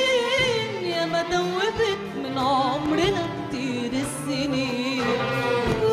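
A woman singing an Arabic song with a live orchestra, holding long notes with wide vibrato and gliding ornaments between them, over strings.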